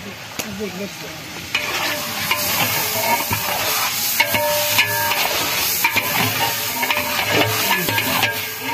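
Chunks of meat sizzling as they fry in hot ghee and onion-tomato masala in a large aluminium degh, stirred and scraped with a long iron ladle. The sizzle grows louder about a second and a half in, with scraping clicks as the ladle turns the meat.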